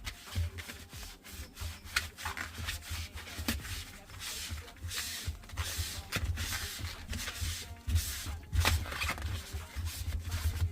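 Magic eraser scrubbing the rubber door seal of a front-loading washer: a steady run of quick, irregular rubbing strokes, with low bumps from handling.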